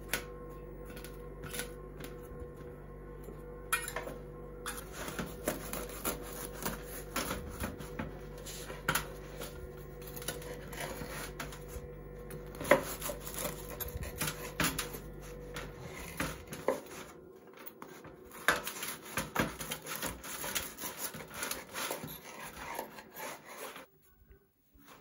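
Knife sawing through a round of bazlama flatbread on a wooden board: repeated scraping, crunching strokes and knocks of the blade on the board. A steady low hum runs underneath and stops about two-thirds of the way through.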